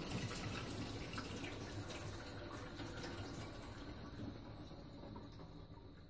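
Soak water pouring off overnight-soaked pinto beans, out of a tilted slow-cooker crock past its lid and into a stainless steel sink. It is a steady rush that tapers off near the end as the pot drains.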